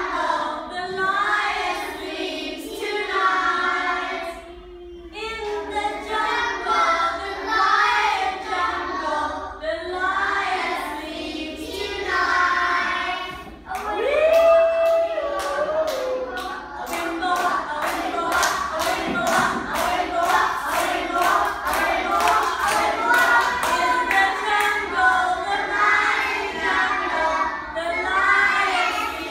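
A class of young children singing together, joined just past the middle by steady rhythmic clapping in time that stops a couple of seconds before the end.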